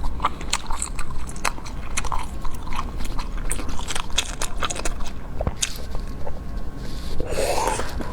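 A person chewing and biting into cake, with many short wet mouth clicks and smacks.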